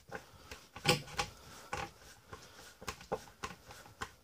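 Hand screwdriver working a screw out of a plywood board: a string of irregular small clicks and scrapes, with the sharpest knocks about a second in.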